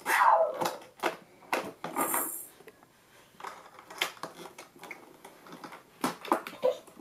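A baby slapping and pressing the hard plastic buttons and dome of a Little Tikes activity walker's play panel: a run of irregular clicks, taps and light clatter, with a louder sliding sound right at the start and a brief high jingle about two seconds in.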